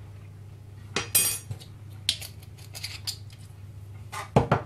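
Metal spoon clinking and clattering as it is handled and laid down on a plastic cutting board, with a brief ringing about a second in, a few light taps after it, then a heavier double knock near the end as an olive oil bottle is set down on a stone worktop.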